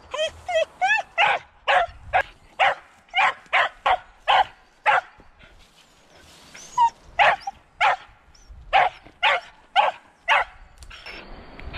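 Hunting dog barking excitedly at a raccoon dog caught in a cage trap. It opens with a few high, wavering yelps, then gives a rapid string of sharp barks about two a second, with a short pause in the middle.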